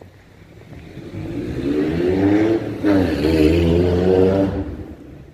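A car passing close by with its engine accelerating. It grows louder over a couple of seconds, dips briefly about three seconds in, then fades away.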